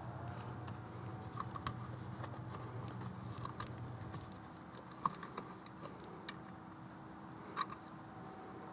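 Scattered light plastic clicks and taps as a replacement rear seat-back latch is handled and pushed into place, over a low steady hum. There are two sharper clicks, one about halfway through and one near the end.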